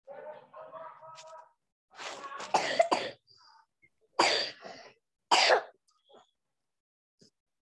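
A person clearing their throat and coughing: three loud bursts about a second apart, the first the longest.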